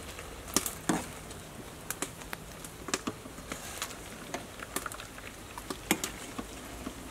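Metal ladle and wire-mesh strainer clinking and scraping against a perforated stainless-steel colander while scooping boiled chicken liver, blood cubes and egg yolks, in irregular light taps.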